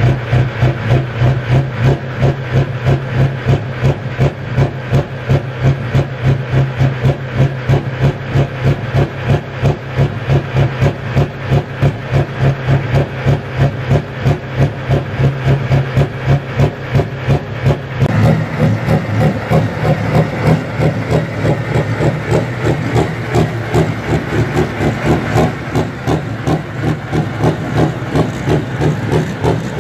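John Deere 4240 pulling tractor's diesel engine idling with an even, rhythmic lope of two or three beats a second. About eighteen seconds in, the sound changes abruptly and the engine runs on as the tractor drives along.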